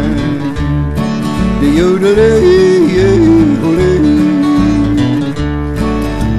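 Country blues music: acoustic guitar over a steady bass pattern, with a lead melody that bends up and down.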